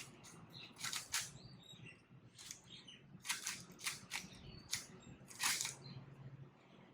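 3x3 Rubik's cube layers being turned quickly by hand: irregular plastic clicks and rattles, several a second.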